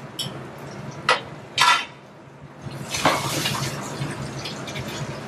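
Two sharp metal clanks of a steel tray and tongs on the steel range, about a second apart, then a burst of sizzling from hot butter in the frying pans that slowly dies down, over a steady low hum.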